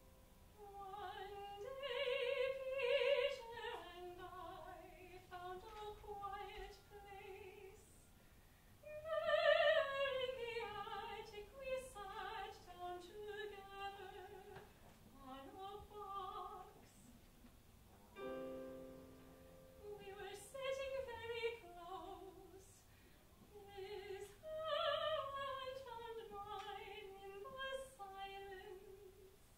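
A soprano sings slow operatic phrases with vibrato, separated by short pauses, over sparse piano accompaniment. A piano chord rings on its own about eighteen seconds in.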